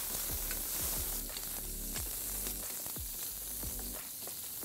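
Sausage pieces sizzling steadily in hot oil in a stainless steel saucepan over a gas camp stove, stirred with a wooden spoon.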